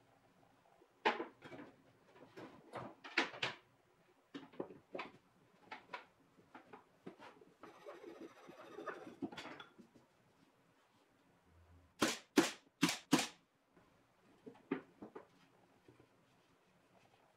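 Plywood parts and a wooden dowel being handled and fitted on a wooden workbench: a string of light wooden knocks and clacks, a dry scraping rub about eight seconds in as the dowel is worked through a hole, and four sharp, loud wooden knocks in quick succession about twelve seconds in.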